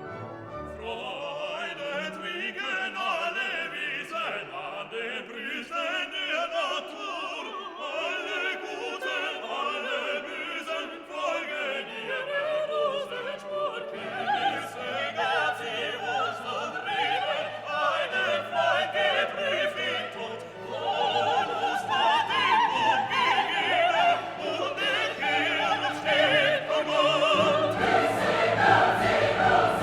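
Background music: classical-style choral music with singing voices and orchestra, building louder in the second half.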